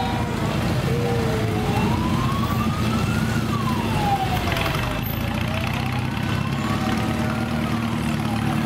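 An emergency-vehicle siren wailing, gliding slowly up and down in pitch about every two seconds, over the steady low running of motorcycle engines moving at a crawl in a parade.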